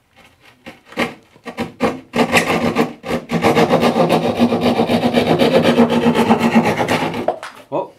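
Hand drywall saw cutting through drywall: a few separate rasping strokes, then about four seconds of fast, steady back-and-forth sawing that stops near the end.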